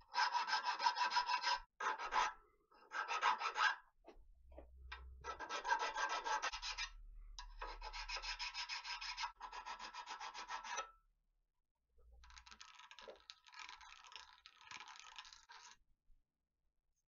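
Hand file deburring an iron casting clamped in a bench vise: runs of quick, even rasping strokes, stopping briefly about eleven seconds in, then lighter strokes.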